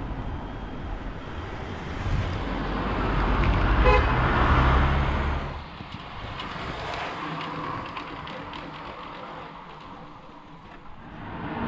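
A road vehicle passing close by, its noise swelling and then falling away sharply, with a short high toot near its loudest point about four seconds in.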